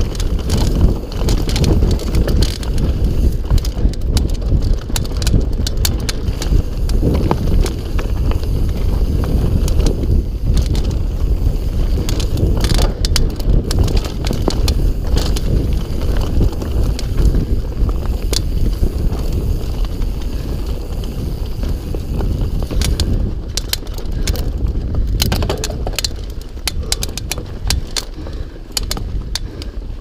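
GT Sanction full-suspension mountain bike descending a dirt forest trail at speed: tyres rumbling over the ground, with frequent rattles and clacks from the bike over bumps. Steady wind buffets the microphone.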